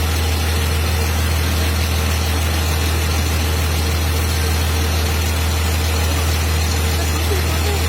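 A vehicle engine idling steadily with a constant low hum.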